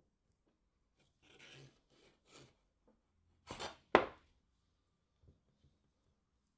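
Knife cutting through a block of firm cold process soap on a wooden cutting board: a few short scraping strokes, then a louder stroke ending in a sharp knock on the board about four seconds in.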